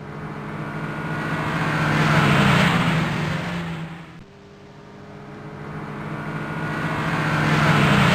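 Volkswagen Golf R's engine and road noise at a steady engine pitch, swelling to a loud peak and then cutting off abruptly about four seconds in. The same swell then builds again toward the end.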